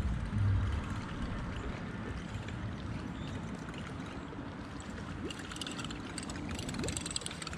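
Small waves lapping and trickling against a fishing boat's hull, with a low rumble of wind on the microphone in the first second.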